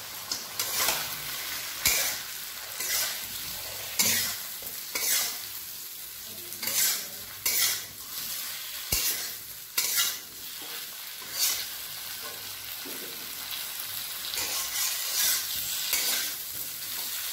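Spatula scraping the bottom of a metal kadai as cauliflower florets and potato pieces are stirred through the spice masala, in strokes about once a second, softer and sparser near the end. A light frying sizzle runs underneath.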